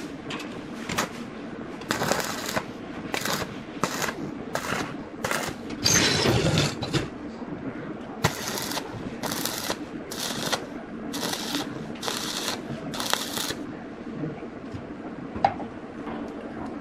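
Rhythmic scraping strokes, roughly one every two-thirds of a second, with a longer, louder scrape about six seconds in.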